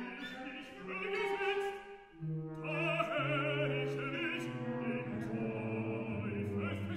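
Operatic baritone singing with wide vibrato over low held notes from the orchestra. The music dips briefly about two seconds in, then the voice comes back strongly.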